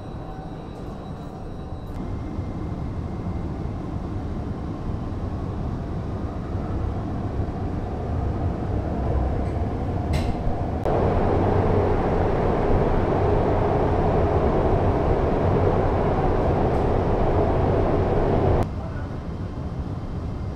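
Metro train running between stations, heard from inside the car as a steady rumble and rushing noise that grows louder. About eleven seconds in it jumps to a louder, harsher stretch, which cuts off suddenly some eight seconds later.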